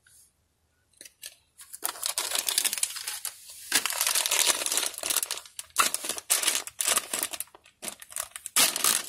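Shiny foil surprise bag from a Pikmi Pops toy crinkling and tearing as it is handled and opened by hand, starting about two seconds in, after a near-silent moment.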